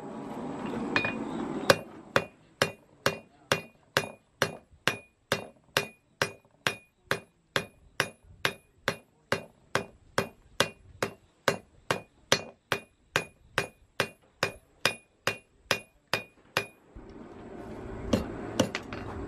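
Blacksmith's hand hammer striking hot iron on an anvil in a steady rhythm of about two blows a second, each with a bright metallic ring, as the handle of a roasting fork is forged and spread. The blows stop about three seconds before the end, leaving a steady hiss with a few lighter knocks.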